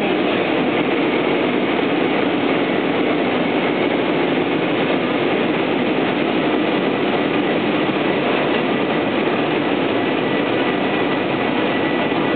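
Passenger train running through the station: a steady, unbroken noise of the train in motion along the platform.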